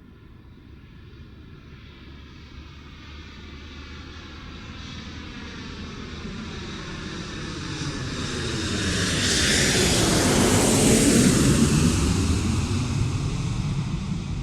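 An airplane flying past: its engine grows steadily louder as it approaches, is loudest about ten seconds in, then begins to fade as it moves away.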